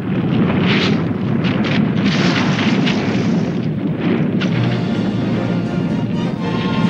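Dramatic background music under booming, rumbling explosion-like effects in a giant-hero battle soundtrack, surging louder about a second in and again two to three seconds in.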